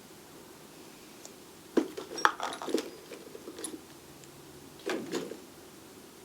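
Small metal tools clinking and rattling as they are handled and set down in a toolbox: a cluster of clatters about two seconds in, and a shorter one about five seconds in.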